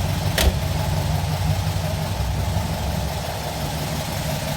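VW Fusca (Beetle) 1300's air-cooled flat-four engine idling steadily, with one brief click about half a second in.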